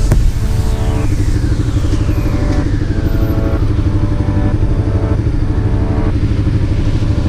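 Steady low engine and wind rumble of a motorcycle on the move, with background music chords coming and going over it. About a second in, a high tone slides slowly down in pitch.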